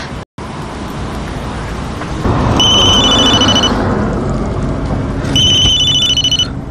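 Mobile phone ringing with an electronic trilling ringtone: two rings, each about a second long, the first about two and a half seconds in.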